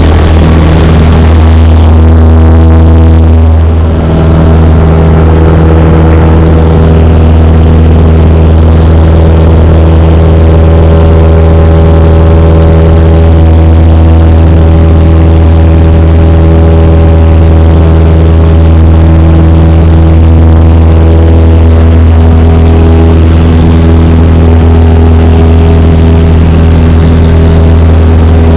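Cessna 172's engine and propeller running at full takeoff power, a loud, steady drone heard inside the cabin. A higher rushing rumble, typical of the wheels rolling on grass, dies away about two seconds in as the plane lifts off.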